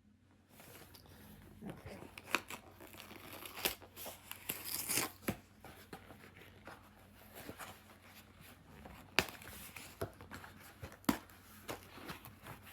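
Cardboard variety-pack box of granola bars being torn open and its packets handled: a run of tearing and rustling packaging with sharp snaps, loudest about five seconds in.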